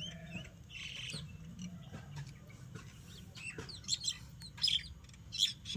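Small birds chirping in rapid, overlapping short calls, growing busier and louder in the second half.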